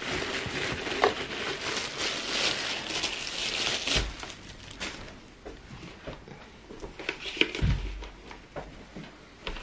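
Packaging crinkling and rustling as a new small blender's parts are unpacked and handled, busiest in the first half, with a couple of dull knocks, about four seconds in and near the end.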